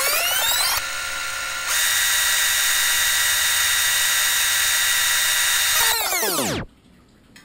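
Electronic fast-forward sound effect: a buzzy tone winds up in pitch, holds steady for about five seconds, then winds down and cuts off near the end.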